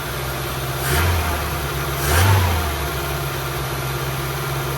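BMW E21 316's four-cylinder M10 petrol engine running on the choke, with two brief blips of the throttle about one and two seconds in. It is a barn-find engine that has just been restarted after 32 years laid up, and it runs smoothly.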